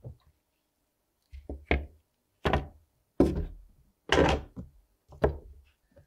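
Small hard plastic TV parts set down one after another on a paper-towel-covered wooden workbench: six knocks at irregular spacing, roughly a second apart, each with a short ring.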